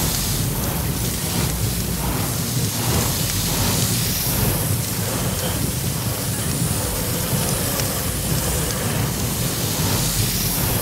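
Sound effect of a fire truck's roof water cannon spraying: a steady rushing hiss of water with a low rumble under it.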